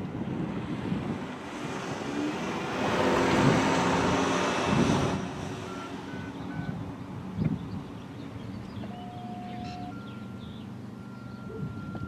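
A vehicle passes on the street, its noise swelling for a couple of seconds and then dropping away. Several faint steady beeps follow: a few short high ones, then a lower tone about a second long, then a longer, higher tone.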